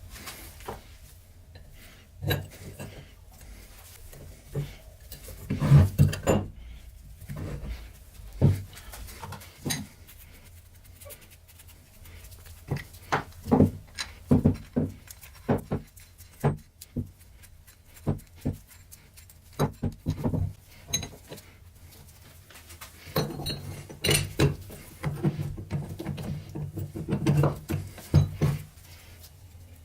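Irregular metallic clinks and knocks of steel parts of a pipe vise being handled and fitted together, with a denser run of clattering near the end.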